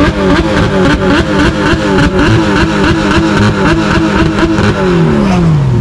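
High-performance car engine revved in quick repeated blips, the pitch jumping up and dropping several times a second, then revs falling away in one long drop near the end.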